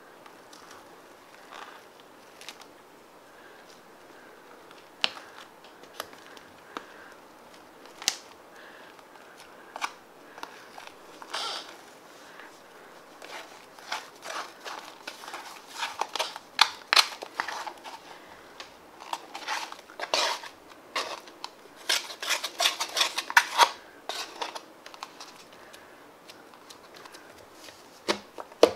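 Fluffy slime being scraped out of a foam cup with a plastic spoon and pulled and squeezed by hand: scattered sticky crackles and clicks, sparse at first and much busier through the middle and later part.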